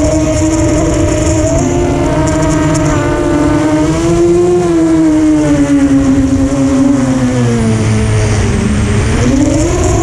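FPV quadcopter's brushless motors and propellers whining, the pitch rising and falling with the throttle. It sags low about eight seconds in and climbs again near the end, over a steady rumble of air.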